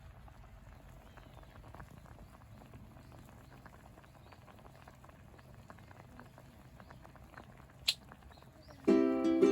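Faint, irregular light patter and small ticks, with one sharp click about eight seconds in. Bright ukulele background music starts just before the end.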